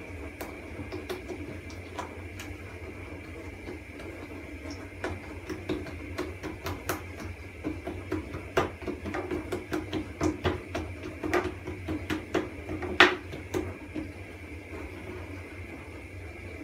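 Pişi dough frying in a pan of hot oil, crackling with irregular small pops over a steady low hum. A sharper pop comes near the end.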